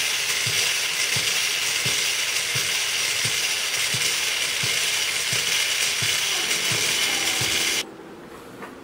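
Small electric motor and gearbox whirring steadily inside a motorised doll, with a regular click about two or three times a second as the mechanism cycles the arms. It stops abruptly near the end.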